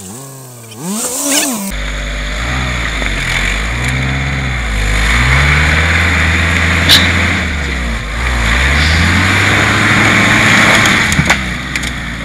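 Suzuki Samurai 4x4's engine revving up and down under load as it crawls through a muddy rut. From about two seconds in, a louder steady rumble with a rushing noise over it, and a single sharp click about seven seconds in.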